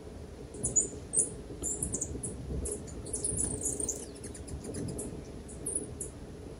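A rapid series of very high, thin bird chirps. They start about half a second in, come thickest around the middle, and thin out to a few last chirps near the end.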